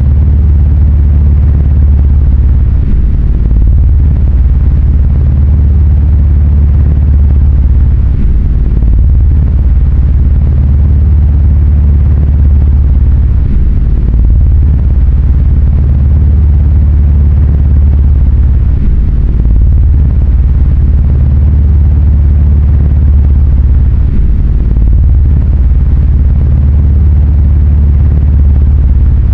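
A loud, steady deep rumble with a low droning tone that shifts slightly every few seconds.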